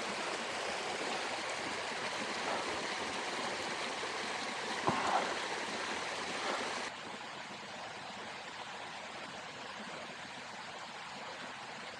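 Mountain creek rushing over rocks, a steady rush that drops abruptly to a quieter, duller level about seven seconds in. One short, sharp sound stands out a little before the five-second mark.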